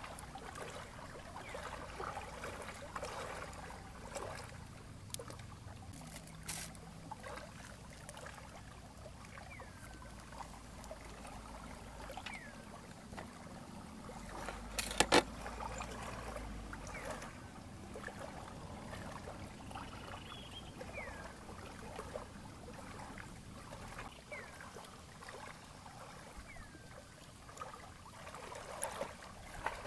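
Lake water trickling and lapping at the shore as a steady wash, with short falling bird chirps now and then and one sharp click about halfway through.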